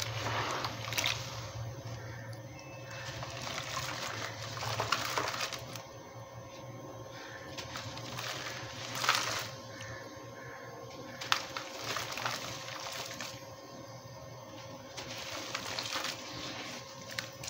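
Gritty cement crumbled by hand into a tub of water: splashing and sloshing, with a few sharp crunchy cracks spread through.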